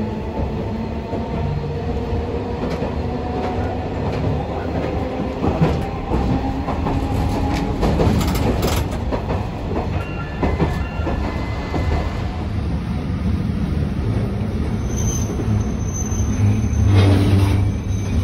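Tosaden streetcar running, its nose-suspended (tsurikake) traction motors humming and whining over a steady rumble, with the wheels clacking over rail joints. Near the end the rumble grows louder as the tram comes to a stop.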